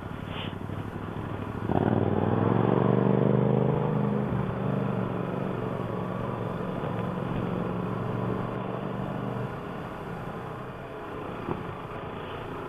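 Motorcycle engine pulling away about two seconds in, loudest at first, then running at a steady pitch until it drops off near the ten-second mark, over steady riding noise.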